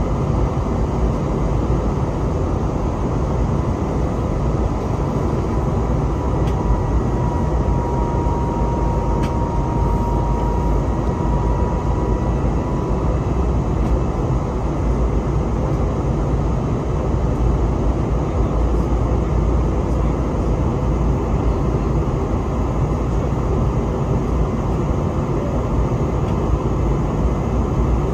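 Cabin noise of an Airbus A321neo climbing after takeoff: a steady roar of its CFM LEAP-1A engines and the rushing airflow, heavy in the low end. A faint whine sits over it for several seconds in the first half.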